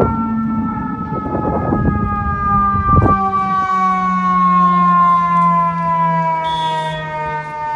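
Emergency vehicle siren in a long, slowly falling wail over city street noise, with a low steady drone and bursts of traffic rumble in the first three seconds.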